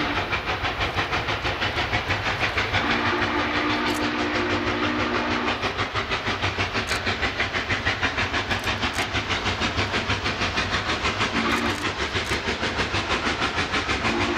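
Norfolk & Western J class 611 steam locomotive working under steam, its exhaust beating rapidly and evenly, while its chime whistle sounds the grade-crossing signal. A long blast about three seconds in, a short blast near the end, and the start of a final long blast just before the end.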